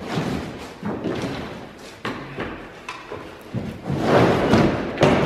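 Truck-bed tool box being pulled and shifted, knocking against the bed: a series of thumps, with a louder, rougher stretch about four seconds in.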